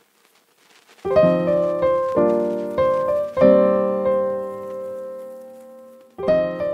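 Background piano music. Chords start about a second in, struck roughly once a second, then one chord is held and fades for a few seconds before the next is struck near the end.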